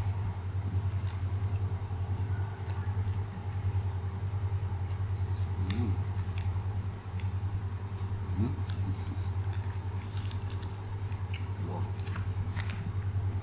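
A person chewing a mouthful of burger, with small wet mouth clicks and a couple of short hummed "mmh" sounds, about six and eight and a half seconds in, over a steady low hum.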